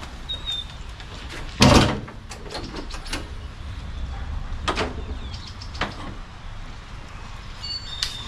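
A loud, drawn-out clunk like a door or panel being moved about one and a half seconds in, followed by a few lighter knocks and clicks.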